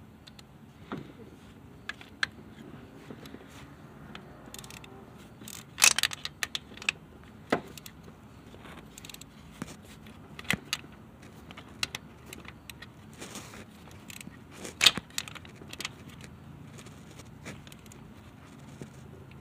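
Scattered metallic clicks, clinks and knocks of hand tools and parts being handled while working in the engine bay, with two louder knocks, one about six seconds in and one about three-quarters of the way through.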